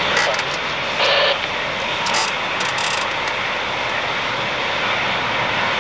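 Douglas DC-8-62F's four Pratt & Whitney JT3D turbofans running at low power, a steady jet rush, with a brief louder hiss about a second in.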